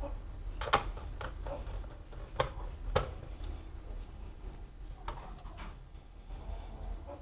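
Irregular sharp clicks and light taps of plastic laptop parts being handled and pressed together while the casing is reassembled, strongest in the first three seconds.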